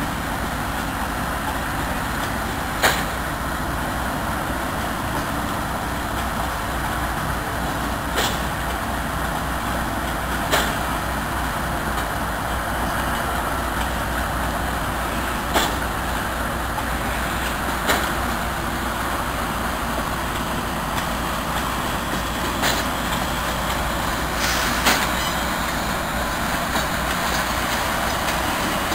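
Steady rumble of moving heavy vehicles, with a short sharp click every few seconds.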